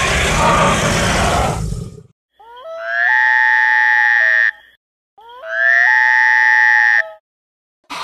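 Dinosaur sound effects: a harsh, noisy roar that ends about two seconds in, followed by two identical long calls, each sliding up in pitch at the start and then holding a steady tone for about two seconds.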